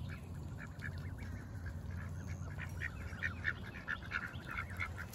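Ducks and Canada geese calling as they feed: a run of short quacks and honks that grows busier and louder from about halfway through, over a steady low hum.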